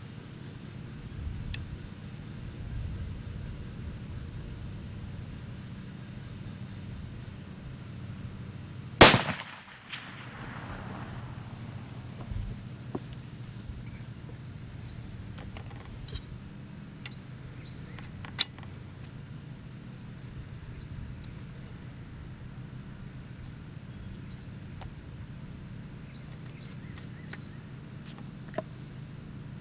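A single shot from a .45 caliber muzzleloader rifle with a muzzle brake, about nine seconds in: one sharp crack with an echo trailing off over about a second.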